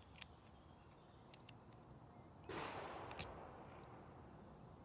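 Quiet hand handling of an AR-15 bolt and bolt carrier: a few faint metal clicks, and about two and a half seconds in a short burst of handling noise lasting about a second.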